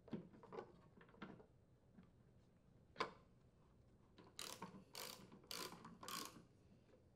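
Light clicks, then a socket ratchet wrench clicking in about five short runs, roughly two a second, as a wheel mounting bolt is tightened.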